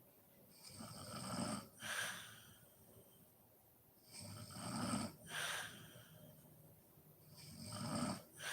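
A sleeping woman snoring heavily in a slow, even rhythm: three breaths, each a snore that swells over about a second and then a short, sharp puff of breath, coming roughly every three and a half seconds.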